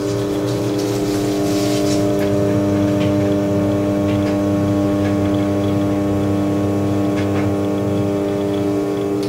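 Electric potter's wheel motor running with a steady, even hum as a bowl is thrown, with a few faint wet clay squelches from the hands.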